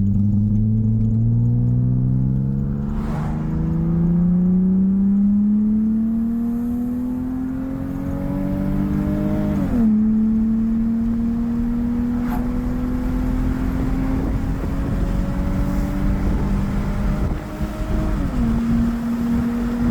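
Lexus GS300's 2JZ-GE inline-six pulling under gentle acceleration, its pitch rising steadily, with the automatic transmission upshifting about halfway through and again near the end, the engine note dropping each time.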